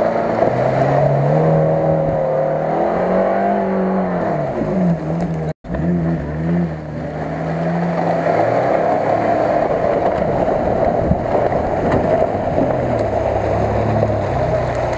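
Off-road 4x4 engines revving as they labour through deep mud and water: first a Daihatsu Feroza's engine rising and falling in pitch, then, after a sudden cut about five and a half seconds in, a Mitsubishi Pajero's engine as it drives through a puddle and passes close by.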